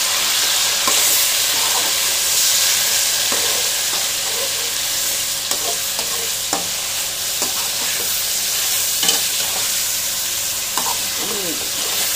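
Raw chicken pieces sizzling in hot oil with browned onions in a metal wok, with a steady frying hiss. A metal slotted spatula scrapes and clicks against the pan now and then as the chicken is stirred.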